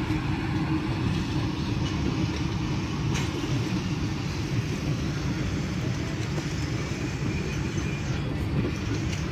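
Pakistan Railways passenger coaches rolling past on the track, a steady low rumble of wheels on rail, with one sharp click about three seconds in.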